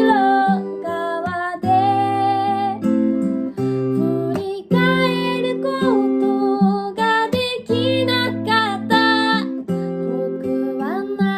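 Acoustic guitar strummed in chords, with a woman singing in phrases over it.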